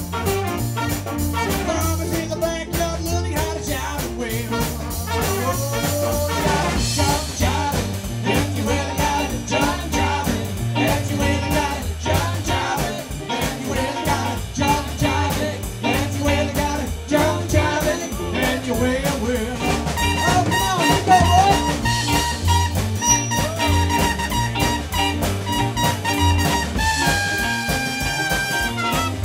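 Live swing band playing an up-tempo jump-jive number: trumpet and saxophones over drum kit, bass and electric guitar, with a steady driving beat.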